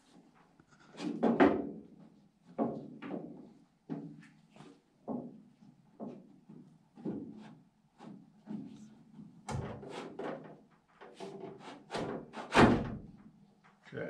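Irregular knocks and clunks of a metal window channel being worked down into the steel door of a 1952 Ford F1, with the loudest knocks about a second in and near the end.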